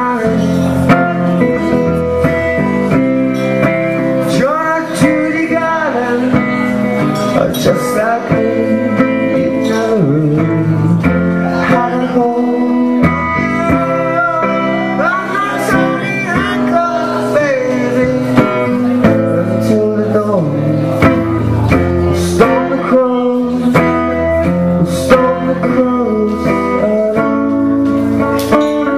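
A man singing a slow song while strumming an acoustic guitar, played live and solo.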